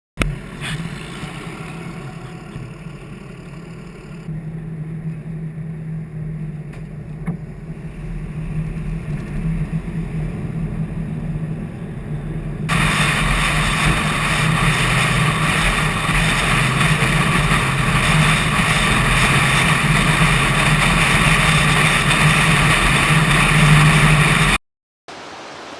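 A motor vehicle's engine running with a steady low hum; about halfway through, a loud rushing noise suddenly joins it and continues until the sound cuts off abruptly near the end.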